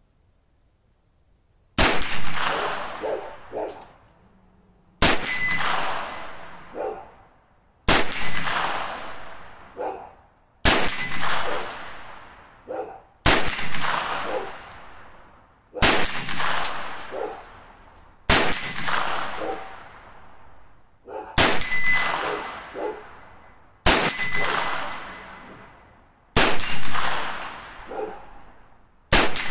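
Slow, aimed single shots from a SIG Sauer MPX 9mm pistol-caliber carbine, about one every two and a half seconds, eleven in all starting about two seconds in. Each shot echoes away and is followed by the ring of a steel target being hit downrange.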